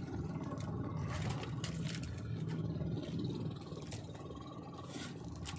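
A small boat engine running steadily at idle, under scattered light clicks and splashes as a handline is hauled in by hand with a fish at the surface.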